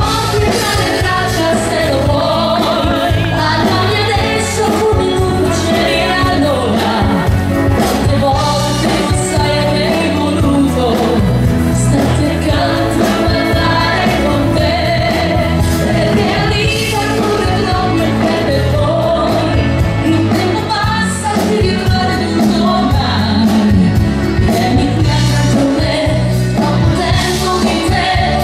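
A woman singing a pop ballad into a microphone, backed by a live band with bass guitar and drums.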